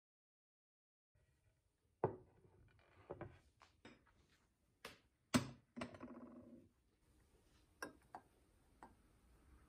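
Porcelain and glass tableware being set down and handled on a kitchen counter: a series of knocks and clinks, the loudest about halfway, with a short ring after it, then a few lighter clicks of metal against glass.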